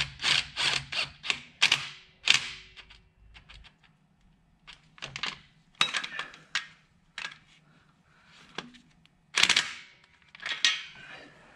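Irregular sharp metallic clicks and clinks of tools and engine parts being handled while a thermostat is worked into its housing, in quick clusters with a louder knock toward the end.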